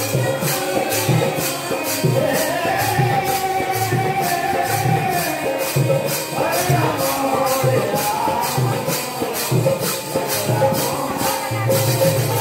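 Devotional kirtan music: a woman singing a held, gliding melody over hand cymbals clashing about twice a second and a steady drum beat.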